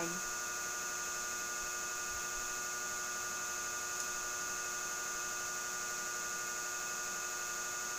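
Steady electrical mains hum with a buzz of many overtones and a hiss, unchanging throughout. One faint click about four seconds in.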